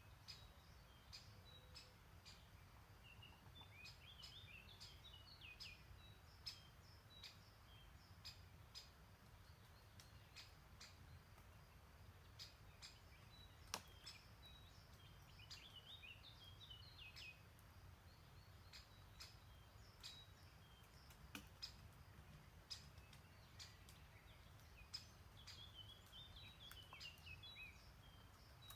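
Faint songbird song: three bouts of quick, falling notes about ten seconds apart. Beneath it is a low, steady rumble, with scattered sharp clicks.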